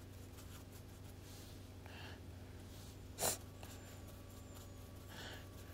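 Quiet room tone with a steady low hum from a humidifier and a washing machine running, and one short breath sound about three seconds in.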